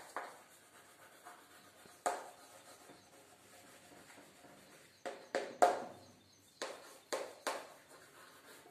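Chalk writing on a blackboard: sharp taps and short scrapes as letters are stroked out, scattered at first and then coming quickly, several a second, in the second half.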